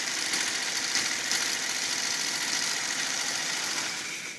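Early electric Singer sewing machine running fast as it sews, a steady, quiet mechanical whir and stitching chatter. It stops abruptly near the end.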